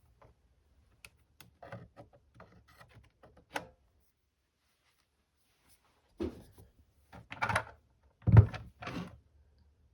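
Handling noises from working on an old radio: light clicks and rattles, a pause, then a series of heavier thunks. The loudest comes just after eight seconds in.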